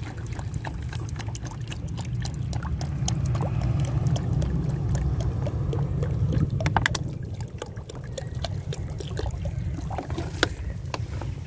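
Water pouring and glugging out of an upturned plastic bottle into a plastic water bowl, with scattered small clicks and crackles. The flow is strongest in the middle and eases off after about seven seconds.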